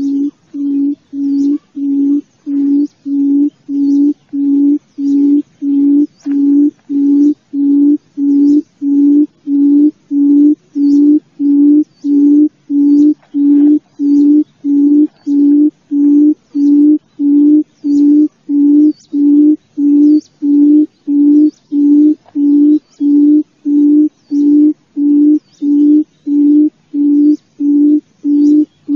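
Forest quail (chim cút rừng) call: one low hooting note repeated steadily, about two a second, the lure call used to draw quail into a cage trap.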